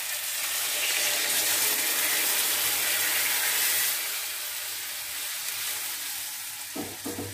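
Water poured into a hot kadai of fried, spiced ridge gourd and potatoes, hissing and sizzling as it hits the hot oil and masala. The sizzle is loudest for the first four seconds and then dies down as the curry fills with water.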